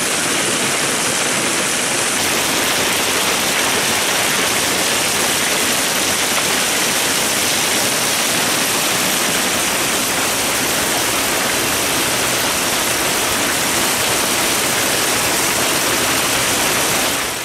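Heavy rain mixed with hail pouring down in a loud, steady rushing hiss.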